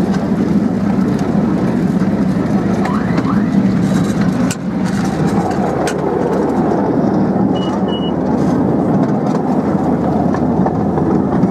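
Ride-on miniature railway train running along its track, a steady rumbling run of wheels and locomotive. A couple of sharp clicks come near the middle, and two short high beeps sound about two-thirds through.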